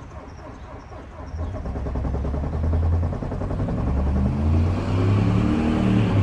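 Volkswagen Jetta TDI diesel engine being cold-started in freezing weather: a low rumble of cranking starts about a second in, then the engine catches about four and a half seconds in and its note rises and wavers as it settles into a rough idle.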